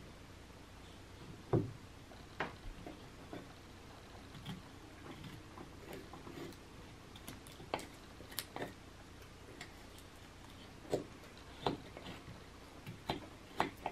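A carving knife whittling air-dried basswood: short, irregular clicks and scrapes as the blade pares off small chips, faint and spaced about a second apart, the sharpest cut about one and a half seconds in.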